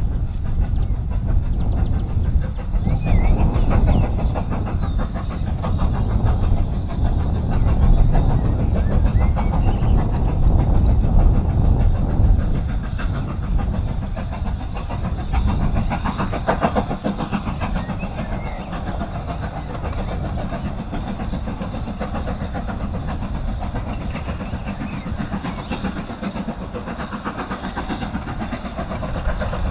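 Steam locomotive working a passenger train, heard at a distance: a continuous rumble of exhaust and running train, louder and more uneven in the first half, then steadier.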